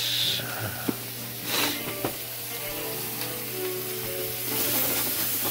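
Steak and vegetable stir-fry sizzling steadily in a frying pan over high heat on a gas burner, with faint background music.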